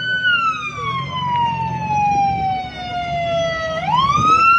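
Emergency-vehicle siren wailing: the tone holds high, falls slowly for about three and a half seconds, then sweeps quickly back up near the end.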